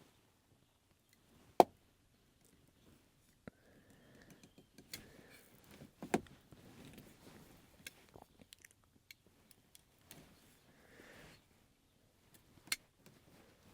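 Handling noise from stripping and working with automotive wiring: scattered sharp clicks and taps, the loudest about a second and a half in, about six seconds in and near the end, with faint rustling between.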